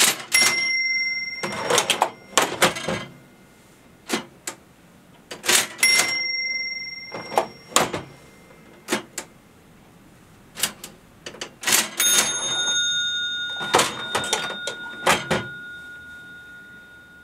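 Antique National Cash Register model 39 twin-drawer register being rung up: bursts of mechanical clatter and clicks from its keys and mechanism. Its bell rings three times, and the last ring has a different pitch and is left ringing and fading out.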